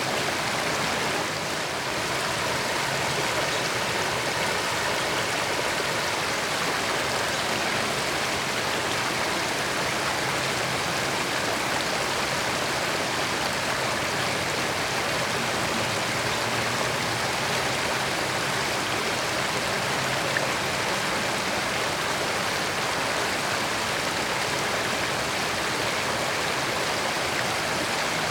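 Creek water flowing and babbling over rocks, a steady, unbroken rush.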